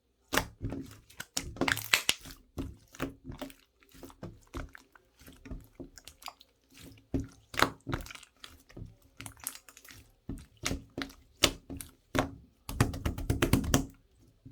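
An irregular run of sharp clicks, taps and knocks, with a dense rapid rattle of clicks about thirteen seconds in.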